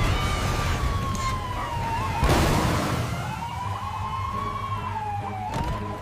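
Police siren wailing, its pitch slowly rising and falling, with a brief noisy rush about two and a half seconds in.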